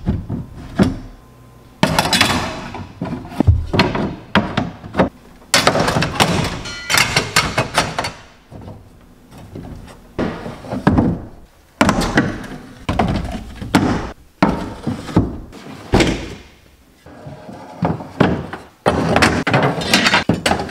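Shovels and other long-handled tools being slid into a 4-inch PVC pipe holder and set down in a pickup truck bed. Repeated knocks, thunks and scraping as the wooden handles and metal heads hit the plastic pipe and the bed.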